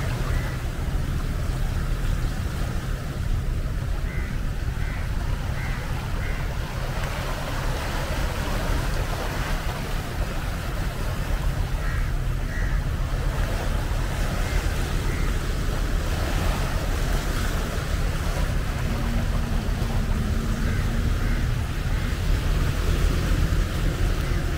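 Small sea waves washing and breaking over the rocks of a rocky seawall revetment, with a steady low rumble of wind on the microphone.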